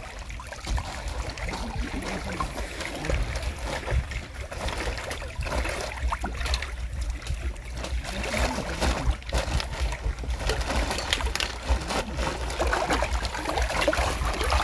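Hands dipping into shallow lake water and kneading wet carp groundbait in a plastic bag: water trickling and splashing, the bag crinkling in irregular small clicks, over a steady low rumble.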